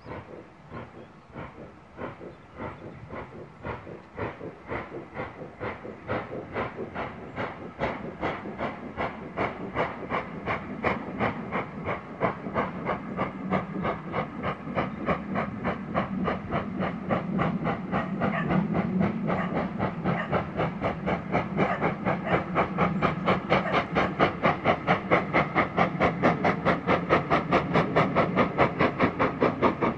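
Steam locomotive working under power, its exhaust beats coming in a quick, even rhythm and growing steadily louder as the train approaches.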